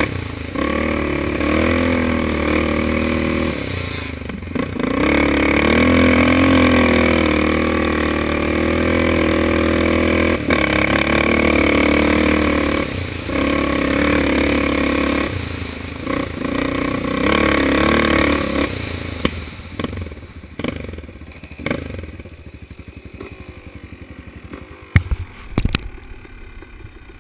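A Yamaha Raptor ATV's engine runs hard along a rough dirt trail, the revs rising and dipping with the throttle and with brief breaks. The engine eases off and drops to a much quieter run in the last few seconds, with a couple of sharp knocks near the end.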